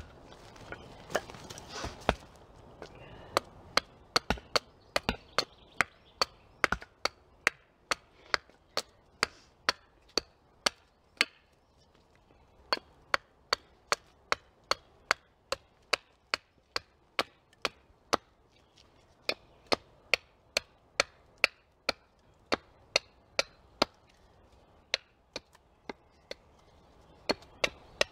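Small hatchet chopping a point onto a thin wooden stake held upright on a stump chopping block: sharp strokes of steel into wood, about two a second, with brief pauses.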